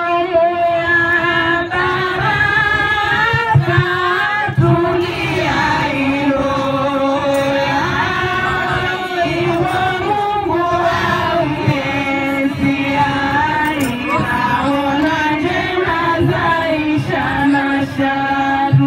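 Group of women singing a Comorian tari song together in long held notes, with a few frame-drum strokes.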